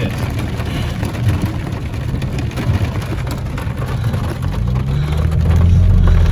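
Car driving on a flooded road in heavy rain: a steady rush of tyre spray and water on the body. About four and a half seconds in, a low engine drone rises in pitch and grows louder.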